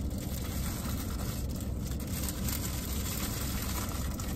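Steady low hum of a car engine idling, heard from inside the cabin.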